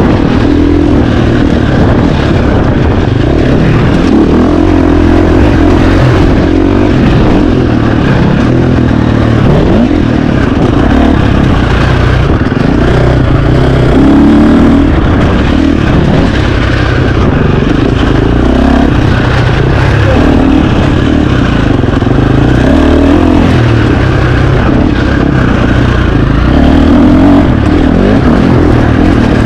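KTM 350 XC-F dirt bike's single-cylinder four-stroke engine running loud under load while ridden off-road, its revs rising and falling constantly with the throttle.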